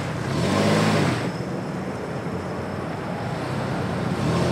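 Toyota Tacoma pickup engine revving up and easing back about a second in, then running under load, as the truck pulls on a rope to rip a tree out of the ground with little traction.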